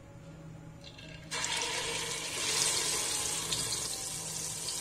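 Yogurt-and-spice masala mixture hitting hot oil in a cooking pot. The sizzle starts suddenly about a second in and then runs on steadily.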